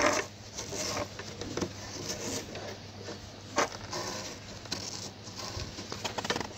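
A cloth rubbing and wiping around the metal shuttle race of an Usha Janome Allure sewing machine, cleaning it before oiling: a soft rustling scrape, with a sharp light click about three and a half seconds in.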